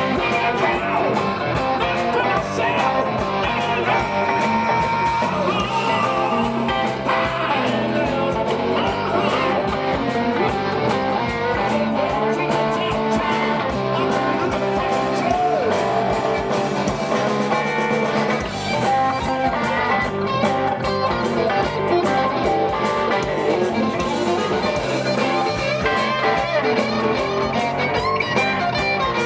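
Live rock band playing: electric guitars over a drum kit, the music running steadily throughout.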